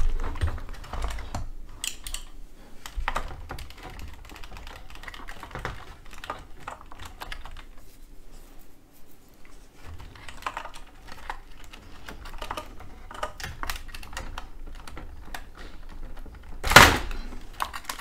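Handling noise from taking apart an Ecovacs Deebot 901 robot vacuum: scattered light clicks and taps of its plastic parts and connectors being worked by hand. There is a louder knock near the end.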